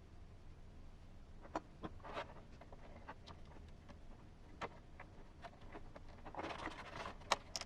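Faint, scattered clicks and taps of small hard plastic parts being handled, as clear lenses are pressed into a scale RC truck's plastic grille. The clicks come closer together near the end.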